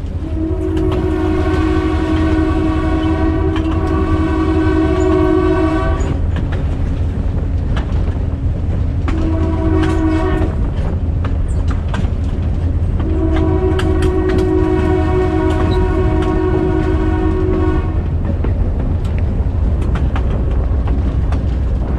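Air horn of a GMD-1 diesel locomotive sounding three times: a long blast of about six seconds, a short one, then another long one. Underneath runs the steady rumble of the moving train, with the clicks of wheels over jointed rail.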